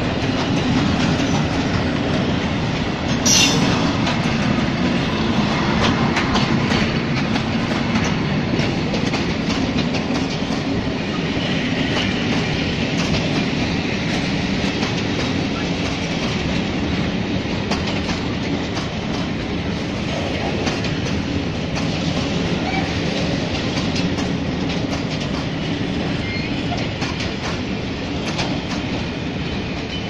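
Long string of Eas high-sided open freight wagons rolling past close by, the wheels clattering over the rail joints in a steady clickety-clack. A brief sharp high screech comes about three seconds in.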